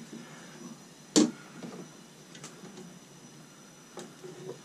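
Tool-handling clicks while soldering a copper pipe joint: one sharp click about a second in, then a couple of fainter ticks.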